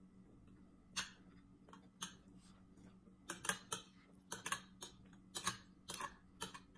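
Metal spoon and fork clinking and scraping against a plate while scooping rice: about a dozen sharp clicks, scattered at first and coming in quick clusters over the second half.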